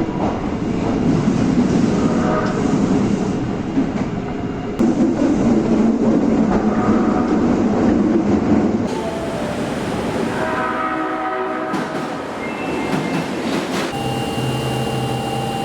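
Osaka Metro 22 series subway train running, wheels rumbling on the track; then an electric train horn sounds in several steady tones, about two thirds in and again near the end, held the second time. This is the odd-sounding horn these particular sets are known for.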